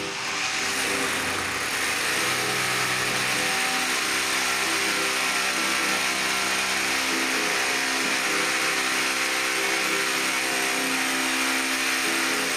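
Electric drill boring into a concrete ceiling with a masonry bit, a steady grinding run without a break. A tune plays underneath.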